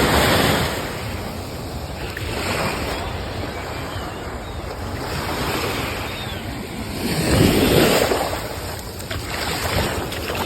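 Ocean surf washing ashore in slow swells, the loudest about three quarters of the way through, with wind rumbling on the microphone.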